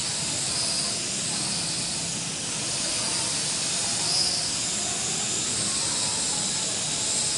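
Small L6036 RC quadcopter flying, its motors and propellers giving a steady high whine and hiss that drifts up and down in pitch. There is a brief louder swell about four seconds in.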